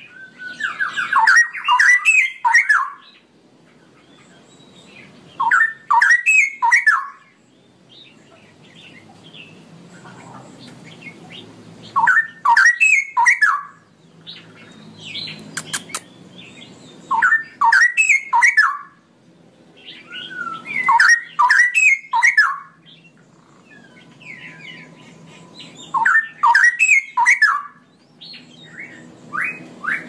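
Straw-headed bulbul singing its bubbling song in short phrases of quick rising and falling whistled notes. About six phrases come, each a second or two long, with pauses of a few seconds between them.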